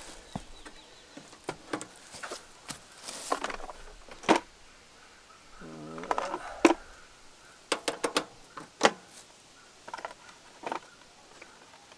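Scattered clicks, taps and knocks of hands handling parts of an old riding lawn mower, with a short low wavering sound about six seconds in.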